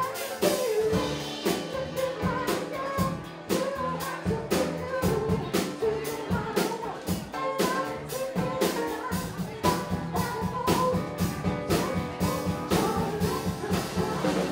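A live band playing a pop-rock song: a woman singing over electric guitar, bass guitar and a drum kit with a steady beat.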